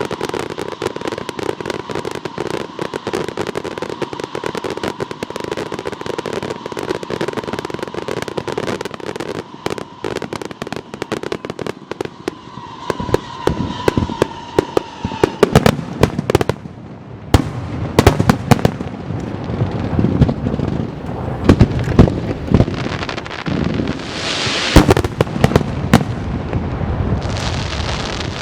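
Aerial fireworks going off: a dense, rapid crackling for the first half, then from about halfway louder separate bangs of shells bursting, some with a crackling tail.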